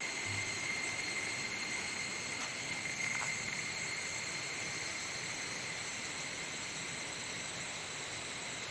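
Forest ambience: a steady high-pitched insect drone over an even hiss.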